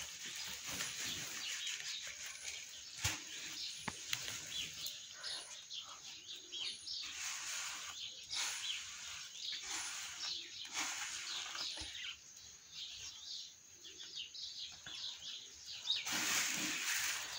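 Small birds chirping again and again. Near the end, grain is poured out of a plastic bucket, a louder rustling hiss.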